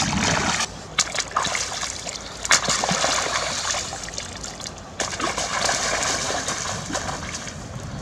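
Splashing river water as a plucked duck carcass and hands are dunked and rinsed in the shallows, in a series of irregular splashes with a few sharp slaps.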